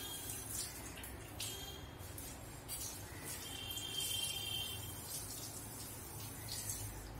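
Granulated sugar trickling from a small steel cup into a pan of milky liquid: a soft, uneven hiss and patter. A low steady hum runs underneath.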